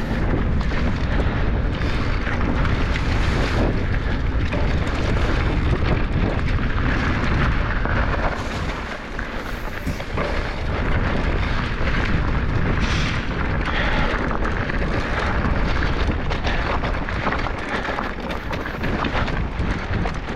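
Mountain bike descending a dirt singletrack: tyres rolling over dirt and loose rock, with the bike rattling and wind rumbling over the action-camera microphone. Continuous and rough throughout, with many small clatters.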